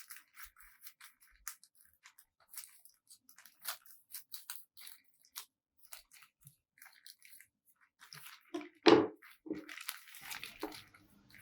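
A parcel's packaging being torn open and handled: irregular crinkling, crunching and tearing, with louder rustling about nine seconds in.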